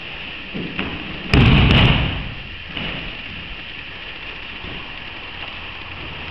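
A person landing heavily on a padded judo-style mat in an aikido breakfall: one loud thud about a second and a half in, after a lighter knock, over a steady background hiss.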